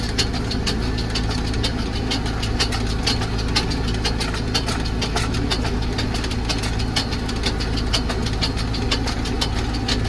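Tractor engine running steadily while driving, heard from inside the cab, with frequent irregular sharp clicks and rattles several times a second.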